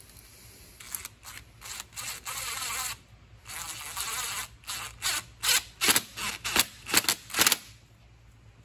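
DeWalt 20V Max XR brushless cordless drill running in short trigger bursts: a few longer runs in the first half, then a quick string of brief blips near the end, turning a pipe plug in the radiator's spare outlet.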